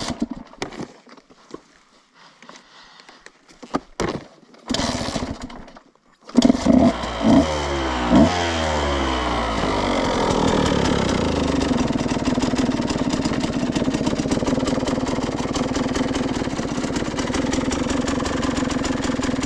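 A 2014 Husqvarna TE125 two-stroke dirt bike engine starts about six seconds in, is revved a few times, and then settles into a steady idle. The engine has been rebuilt and now holds its idle instead of cutting out.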